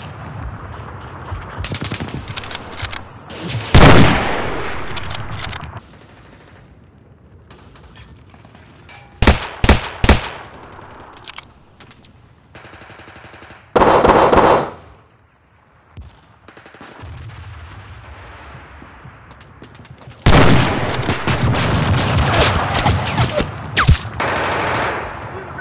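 Rifle gunfire: a single loud shot about four seconds in, a quick string of three or four shots near ten seconds, a short dense burst a few seconds later, and sustained automatic fire over the last five seconds.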